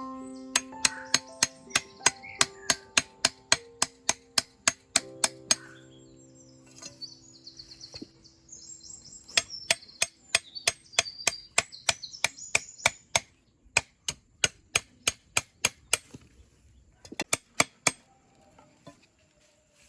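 Rhythmic chopping, sharp knocks about three a second in several runs with short pauses between them, over soft background music at first and birds chirping.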